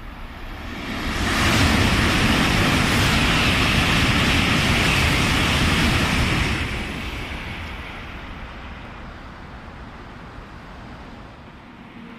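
A Shinkansen bullet train passes through the station at high speed: a rushing roar that swells about a second in, holds for about five seconds, then fades away.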